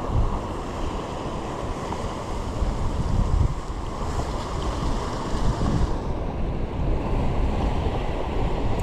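Wind buffeting the microphone in gusts, over the steady wash of the sea.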